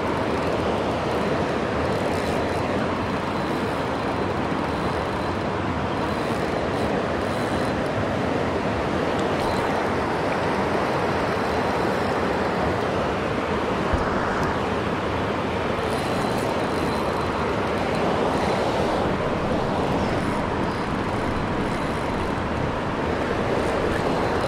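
Shallow, rocky river running steadily through a riffle: an even, unbroken rush of water.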